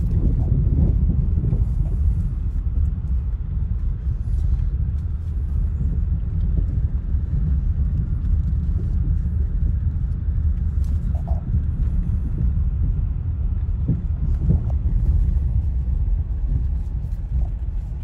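Steady low rumble of a car driving slowly over the wooden planks of a pier, heard from inside the cabin.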